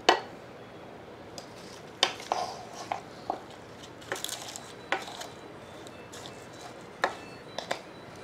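A wooden spatula stirring raw mutton, sliced onions and spices in a metal pressure cooker. It knocks and scrapes against the pot's sides in sharp, irregular clatters, the loudest right at the start and again about two and seven seconds in.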